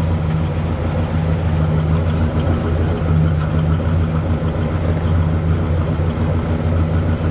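1960 Chrysler 300F's 413 cubic-inch cross-ram V8, fed by two four-barrel carburetors, idling steadily and smoothly, heard from behind at the exhaust outlets.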